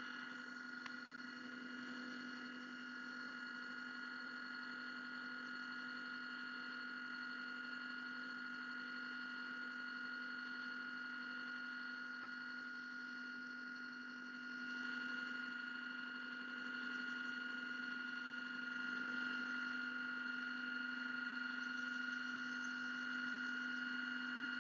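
CXT 353 frozen sample aliquotter's spindle driving the coring probe down into a frozen sample, a steady hum with high tones. It grows a little louder about 15 seconds in and again near 19 seconds.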